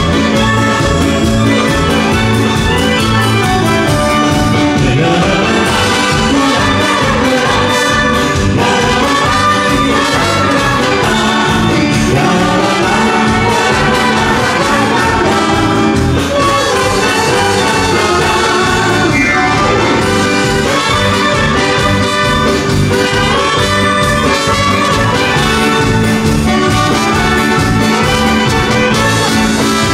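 Live dance band playing a song, with trumpet, clarinet, saxophone, violin and drum kit, and women singing over the band.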